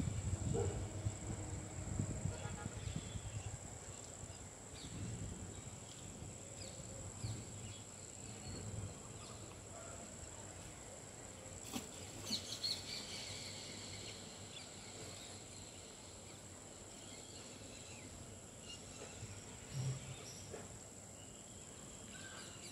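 Rural outdoor ambience: a steady high-pitched insect drone, with scattered short bird calls.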